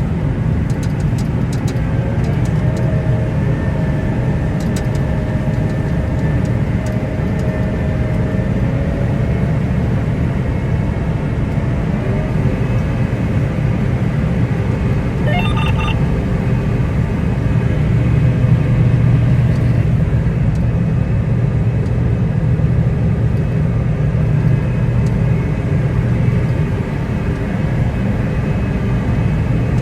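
A large engine running steadily with a deep drone and faint whining tones above it, as of harvest machinery. A brief high chirp sounds about halfway through.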